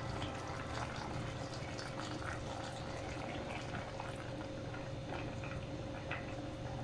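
A pot of chicken in a pineapple and milk sauce simmering, with a steady run of small irregular bubbling pops.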